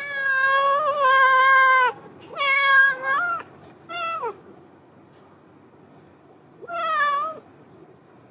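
Orange-and-white tabby cat meowing while being stroked: a drawn-out meow of about two seconds, a few shorter meows, then after a pause one more about seven seconds in.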